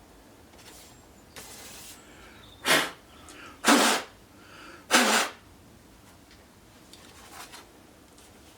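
A person sneezing three times in quick succession, about a second apart.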